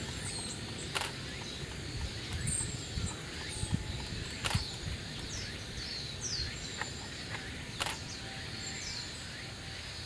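Japanese white-eyes giving scattered thin, high, short calls, many of them falling slightly in pitch. A few sharp clicks come about every three seconds over a steady low background rumble.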